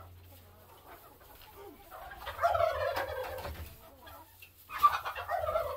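Laying hens calling, in two loud bursts about two seconds in and again near the end, with softer clucking between.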